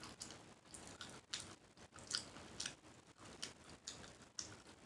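Close-miked mouth sounds of a person drinking water: a string of small gulps and wet lip clicks, about two a second, faint.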